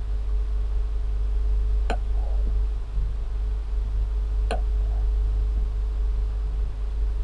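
Two sharp computer-mouse clicks, about two and a half seconds apart, over a steady low hum.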